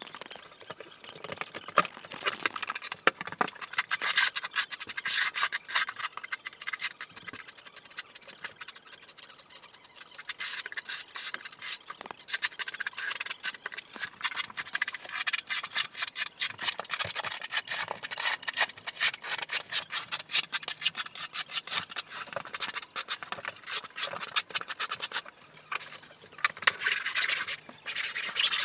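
Rough scraping and rubbing of a hand tool worked over the floor, pressing an uncoupling membrane down into thinset, in quick, uneven strokes with a short lull near the end.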